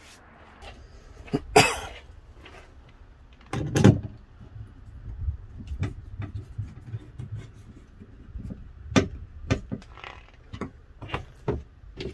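Knocks and clicks from hands working on the open tailgate of a Fiat 500L: two louder bangs in the first four seconds, the second heavier, then a run of short clicks and taps as plastic trim around the tailgate lock is handled.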